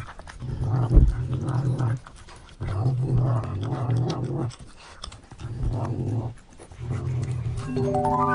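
A cat growling in repeated low rumbles of about a second each while eating, with short pauses between them. A brief held tone comes in just before the end.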